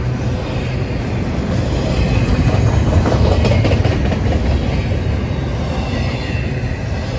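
Double-stack intermodal well cars rolling past: a steady rumble of steel wheels on rail with clickety-clack, a little louder about halfway through.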